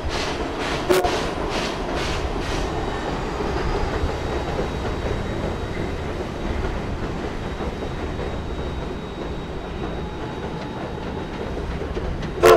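Steam locomotive working across a steel girder bridge: exhaust chuffs about twice a second at first, merging into the steady rumble and clatter of the coaches on the bridge. A short steam-whistle blast about a second in and another, louder and clipped, near the end.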